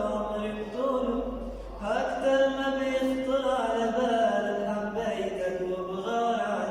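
A young man singing a sad Arabic song, drawing out long, wavering notes.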